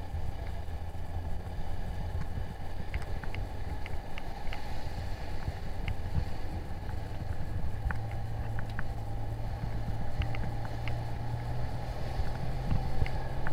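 Outboard motor of a coaching inflatable running steadily, with wind and water rushing past the boat and a few faint ticks of spray; the engine hum firms up slightly about eight seconds in.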